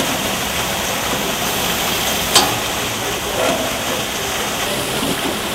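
Garden pond fountain: a bubbler jet pouring up and splashing back into the water, a steady rushing sound. A brief click about two and a half seconds in.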